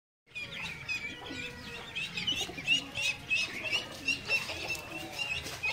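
A group of ducklings peeping: many short, high chirps repeating rapidly and overlapping, starting a moment in.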